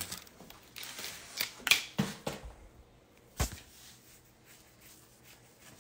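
Two burnt toasted bagel halves rubbed together to scrape off the char: a few short scratchy strokes, then a single knock about three and a half seconds in.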